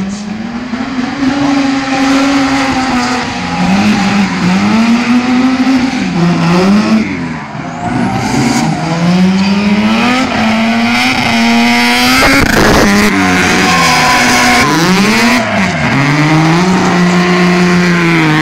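Race car engine driven hard, its revs climbing and dropping over and over with gear changes and throttle lifts. A burst of harsh noise comes about twelve seconds in.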